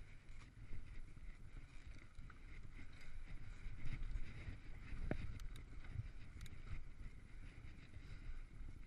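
Mountain bike rolling along a dirt singletrack: a steady, uneven rumble of knobby tyres and wind buffeting the microphone, with a few sharp clicks and rattles from the bike about halfway through.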